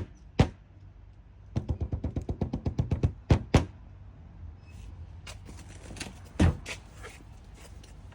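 Drumming knocks on a hollow object: a quick run of about nine knocks a second for a second and a half, then a few louder single knocks, over a low steady rumble.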